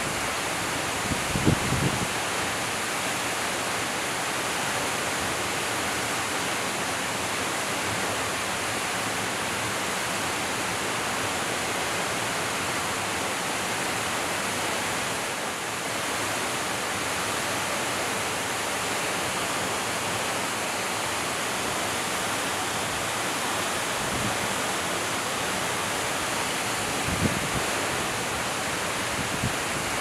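Waterfall crashing into a rocky plunge pool: a steady, even roar of falling water, with a couple of brief low thumps about a second in and near the end.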